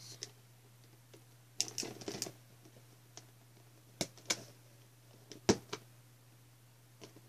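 Plastic toy packaging being handled and pried at: scattered clicks and crinkles, a small cluster about two seconds in and the sharpest click about five and a half seconds in.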